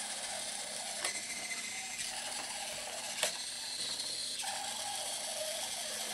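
Boe-Bot robot's small servo drive motors whirring steadily as they turn its wheels across the board. The sound changes a little about four seconds in, and there is a sharp click about three seconds in.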